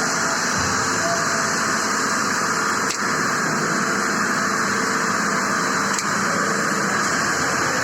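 Steady hiss-like noise with a faint hum underneath, unchanging apart from brief dips about three seconds in and again about six seconds in.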